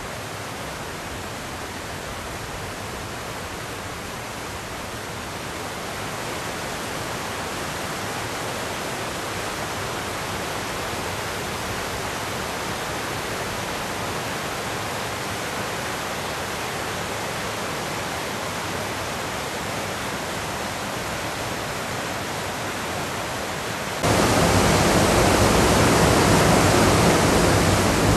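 Steady rush of a rocky creek running over small cascades, with no breaks. Near the end it cuts suddenly to a louder, fuller rush of water.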